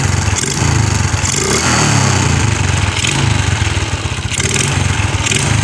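Suzuki Shogun 125's single-cylinder four-stroke engine running and being revved, the revs swinging up and down about two seconds in. It runs on an emergency ignition fix: the weak ignition source coil, which gave only a red spark, is bypassed with the lighting coil's feed.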